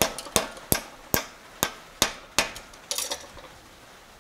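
Hand hammer striking a red-hot steel bar clamped in a bench vise, bending it over the jaws into a hook: seven sharp blows at about two or three a second, then a couple of lighter taps about three seconds in before it stops.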